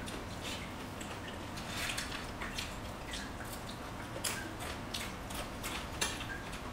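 Wet chewing and lip smacks of people eating rice and dal, with the soft squish of rice mixed by hand: a string of irregular small clicks.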